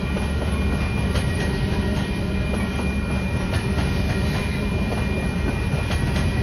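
Covered hopper cars of a freight grain train rolling past close by: a steady rumble of steel wheels on rail, with light clicks as the wheels pass over the rail joints.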